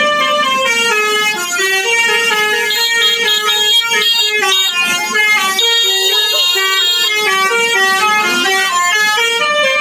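Indonesian bus 'telolet basuri' multi-tone air horn playing a tune: a quick run of held notes stepping up and down in pitch several times a second.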